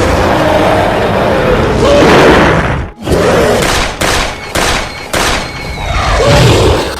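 Giant-monster film sound effects: loud, roaring monster cries with a wavering pitch, then a series of three sharp booming impacts a little past the middle, and another roar near the end.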